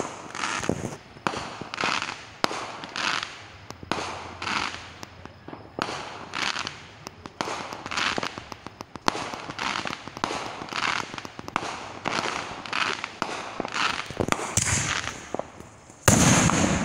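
Fireworks going off in quick succession, short hissing bursts and sharp pops about one or two a second, with a much louder firework bang near the end.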